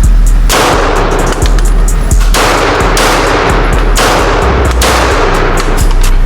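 A handgun fired in a timed string of single shots spaced roughly a second or more apart, each shot followed by a long echo, over background music.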